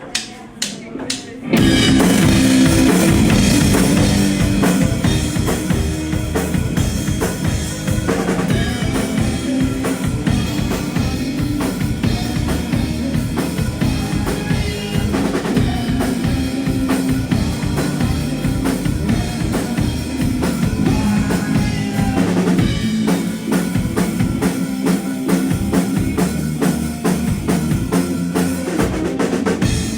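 Live band on stage: a quick count-in of about four clicks, then drum kit, bass and guitar come in together loudly about a second and a half in and play on steadily.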